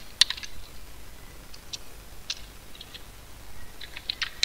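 Computer keyboard being typed on: a few separate keystrokes with pauses between them, coming quicker near the end.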